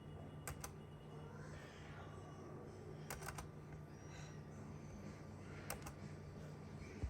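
Scattered sharp computer clicks: a pair about half a second in, a quick run of about four around three seconds, and another pair near the end, over a faint steady low hum.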